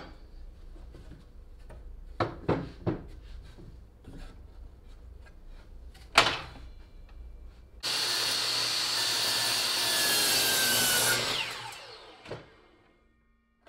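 DeWalt miter saw starting about eight seconds in and running for about three and a half seconds as its blade cuts through glued plywood. It is then released, and its whine falls away as the blade winds down. Before it, a few knocks as the wood is set on the saw.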